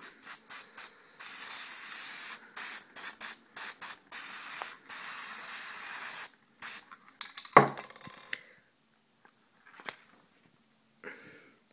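Aerosol spray paint can sprayed through a stencil: a few quick short bursts, then several longer sprays of one to two seconds, stopping about six and a half seconds in. A single knock follows about a second later.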